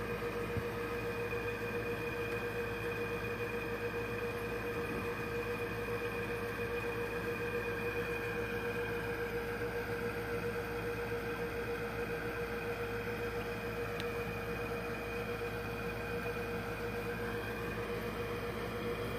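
Aquarium air pump running a sponge filter: a steady electrical hum with a constant tone over a faint hiss.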